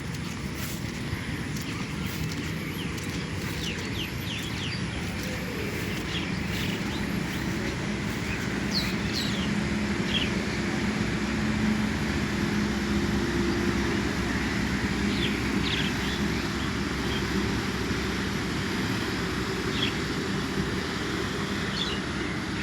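Outdoor ambience: a steady low rumble of distant motor traffic, with an engine hum that swells about eight seconds in and fades again, and scattered short bird chirps over it.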